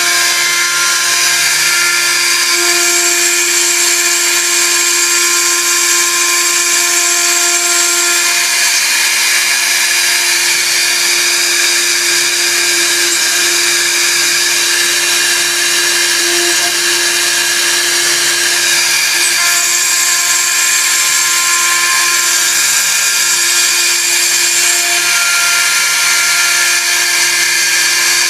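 Industrial machine running steadily: a high-speed motor whine over a constant hiss, its tone changing slightly a few times.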